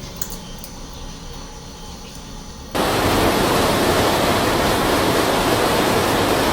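Rushing floodwater: a low, steady noise that switches abruptly about three seconds in to a loud, even rush of fast-flowing water.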